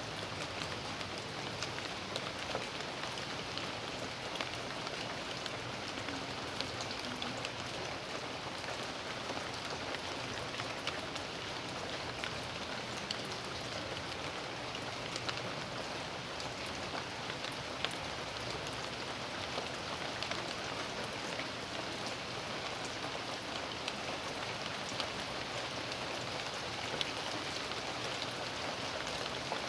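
Steady rain falling on a backyard, an even hiss with the sharp ticks of single drops striking surfaces close by.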